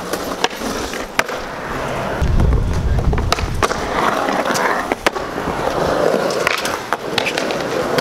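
Skateboard on concrete: wheels rolling with a deep rumble, sharp clacks of the board and trucks hitting down, and metal trucks grinding along a concrete ledge. The rumble comes about two seconds in, the grind follows, and clacks recur throughout.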